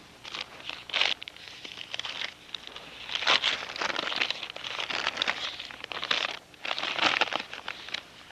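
Paper crinkling and rustling by hand in irregular bursts as a wrapped bundle is opened and unfolded.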